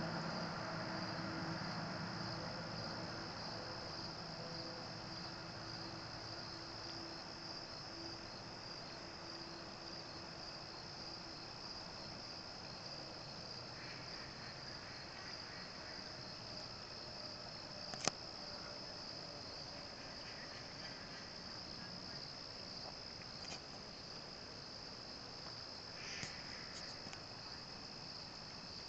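Steady, high-pitched chorus of insects chirping. A low hum fades out over the first several seconds, and a single sharp click comes about two-thirds of the way through.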